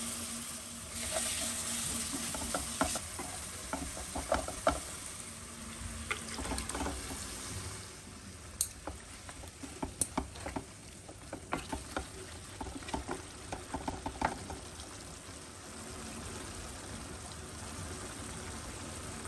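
Curry masala sizzling in a non-stick kadai while a spatula stirs and scrapes through it, with quick clicks and taps from about two seconds in until near fifteen seconds; then an even sizzle.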